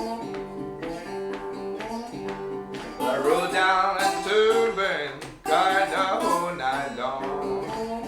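Resonator guitar played with a slide in open G tuning, in a delta blues riff. A steady repeated low-note pattern gives way about three seconds in to notes sliding up and down. After a brief break in the notes about two-thirds through, the slid phrases return over the bass riff.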